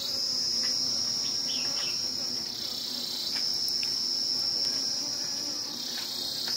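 A singing insect's steady, high-pitched trill, which breaks off twice for under a second, over a faint low hum of honeybees at their colony.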